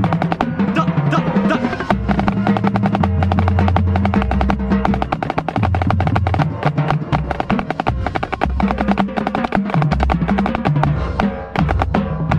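Marching snare drum heard close up, playing fast, dense rudimental patterns and rolls within a percussion ensemble, over sustained low pitched notes.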